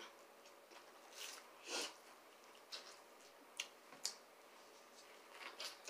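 Faint eating sounds: corn on the cob being bitten and chewed, with a few soft sniff-like breaths and several sharp little mouth clicks.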